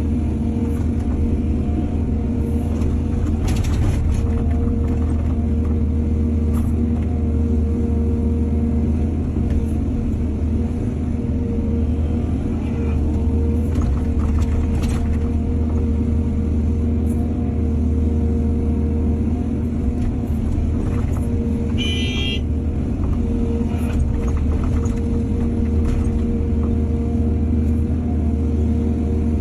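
Excavator's diesel engine running steadily under load, with a few sharp knocks and clanks from the work and one brief high-pitched squeal about two-thirds of the way through.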